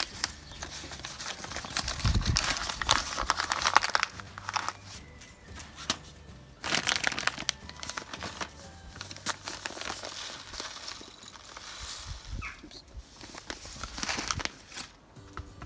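Plastic food bags of flour and oats crinkling and rustling as they are handled, in several irregular bouts with short pauses between.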